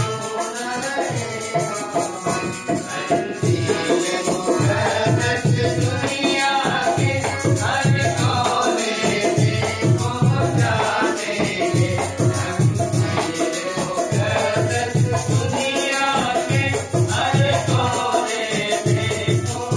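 A devotional song: singing voices over a steady drum beat and a rattling shaker.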